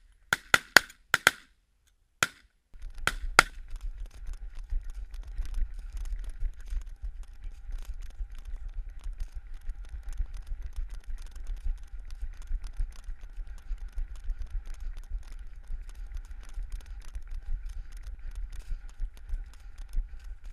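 A volley of about seven shotgun shots in the first three and a half seconds, fired at cranes flying overhead. Then footsteps running over a stubble field, with a steady low rumble of wind and handling noise on the body-worn camera.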